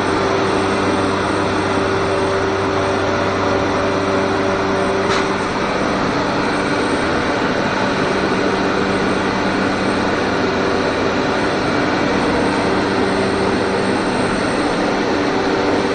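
Steady, loud machinery noise in a workshop, a constant hum with a steady whine over it, and one short click about five seconds in.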